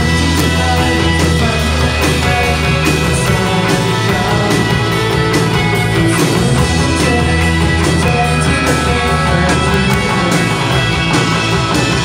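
A rock band playing live: electric guitars, keyboards and a drum kit in a full, steady passage with a regular drum beat.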